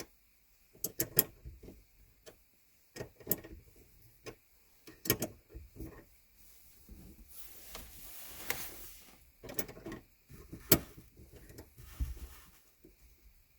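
Irregular metallic clicks and taps of a 10 mm wrench tightening the M6 lock nut on the gear shift cable's rod end, with a couple of seconds of rustling hiss just past the middle.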